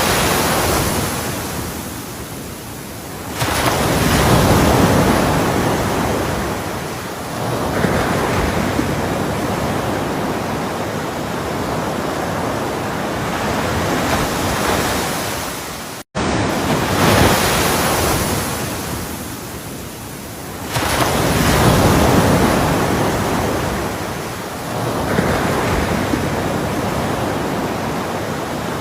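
Ocean surf washing steadily, swelling louder as waves break several times. It cuts out for an instant about halfway through and then starts again.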